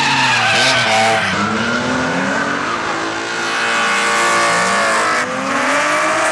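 Drift cars' engines revving hard, their pitch climbing and dropping as the cars slide sideways, over continuous tyre squeal and skidding. Midway one engine holds high revs steadily for a couple of seconds.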